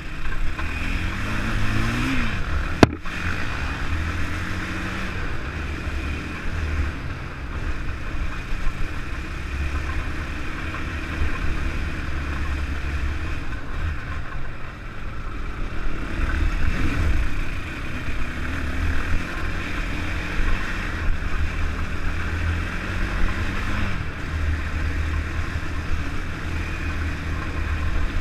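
Honda TRX450R ATV's single-cylinder four-stroke engine running under load, revving up and down with the throttle. A single sharp click about three seconds in.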